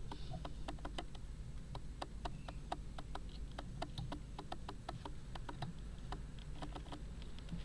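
Video camera's autofocus clicking: rapid, irregular clicks, several a second, the sign of the camera struggling to focus on the close-up.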